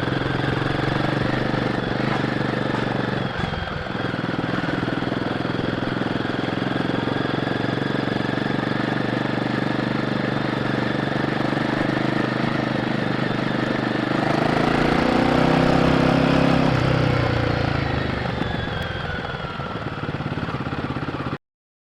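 Royal Enfield Guerrilla 450's single-cylinder engine running on the stock exhaust while riding. There is a brief dip about three and a half seconds in. Past the middle the revs climb and the sound grows louder, then eases off. The sound cuts off abruptly just before the end.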